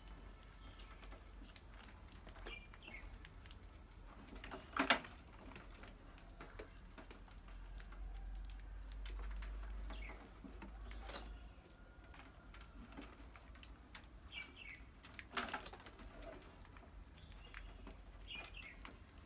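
Mice scrabbling and moving about in a wire-mesh cage trap, with a few short high squeaks and two sharp knocks, about five seconds in and again after fifteen seconds.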